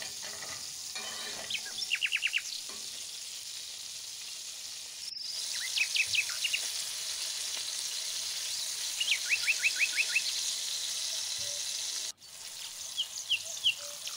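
Chicken cutlets frying in hot oil in a pan, a steady sizzle. Several times, a bird breaks in with short runs of quick high chirps.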